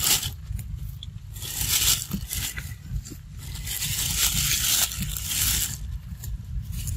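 Baby macaque biting and chewing a ripe mango, wet crunchy bites and slurps coming in bursts, longest from about four seconds in. A steady low rumble runs underneath.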